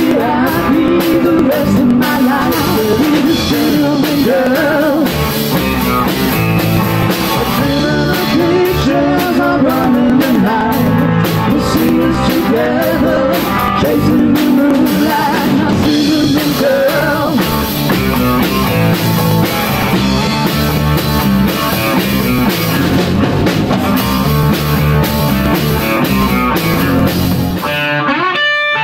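Live blues-rock band playing loud: a man singing over electric guitar, bass guitar and drum kit. About a second before the end the drums and bass stop, leaving the electric guitar playing alone.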